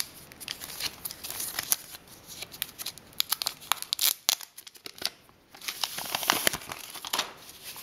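Clear plastic protective film crinkling as hands grip and turn the wrapped speaker: a run of sharp, irregular crackles, with a short lull about halfway through.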